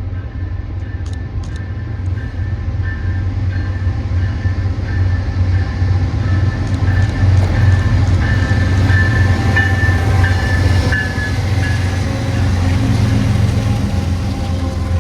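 Diesel freight train passing close by: heavy rumble of the locomotives and cars with a steady high whine over it, growing louder to a peak about halfway through and staying loud.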